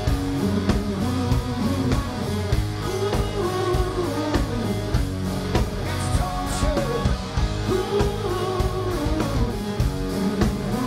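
Rock band playing live: a man singing over electric guitars, bass and a drum kit keeping a steady beat.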